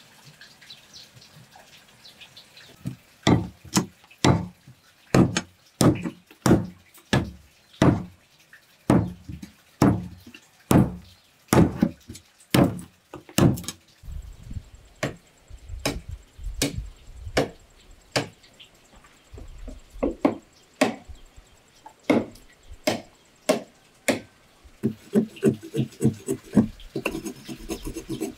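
Wood being chopped with a machete: a steady run of sharp blows about two a second, then more scattered blows over a low rumble, and a quicker flurry of lighter chops near the end.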